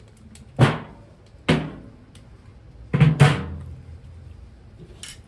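Steel lid of an Old Smokey charcoal grill being lifted off and set down: four sharp metallic clanks, each ringing briefly, the last two close together about three seconds in.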